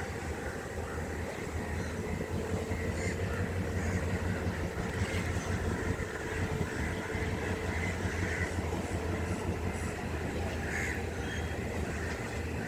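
Class M6 diesel-electric locomotive's GM EMD two-stroke V12 engine running with a steady low rumble as the train moves toward the yard, with crows cawing a few times.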